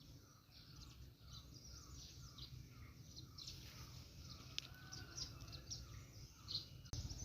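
Several small birds chirping, faint: many short high chirps overlapping, with a lower call repeated about two to three times a second for the first few seconds. A steady low background rumble runs underneath.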